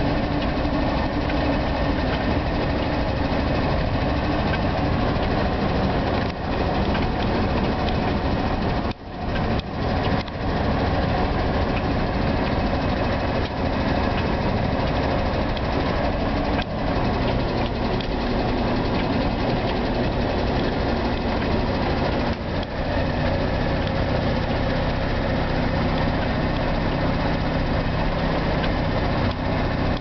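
Car interior noise while driving: the engine and road noise run steadily, heard from inside the cabin, with a brief drop in loudness about nine seconds in.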